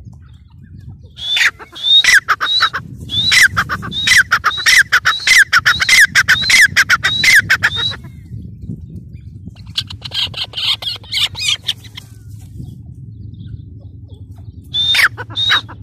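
Grey francolin calling: a loud run of shrill repeated notes, each dropping steeply in pitch, about two a second for several seconds. A short harsh chatter follows, then two more calls near the end.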